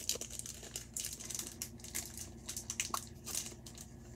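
A small packet crinkling and crackling in short, irregular bursts as gloved fingers work at opening it to get a ring out.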